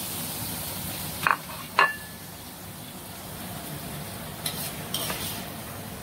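Beef strips sizzling in a hot steel wok, with metal tongs clinking sharply twice about a second in, the second clink ringing briefly, as the meat is lifted out onto a plate. The sizzle then thins, and two lighter clinks come near the end.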